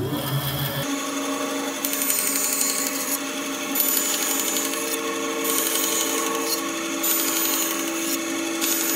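Bandsaw running and making short straight relief cuts into a board. The blade's cutting hiss starts and stops several times as the wood is fed in and backed out, over the machine's steady hum.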